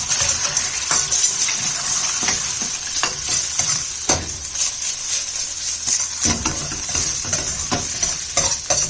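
Egg whites sizzling as they fry in hot oil in a pan: a steady high hiss, with a utensil scraping and tapping against the pan every so often as they are stirred.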